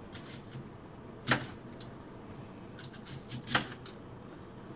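Two sharp knocks about two seconds apart, with a few fainter clicks, over a faint low hum.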